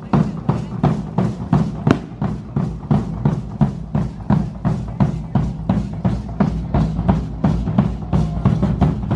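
A drum beaten in a steady, fast rhythm, about three strokes a second, keeping the beat for a matachines dance.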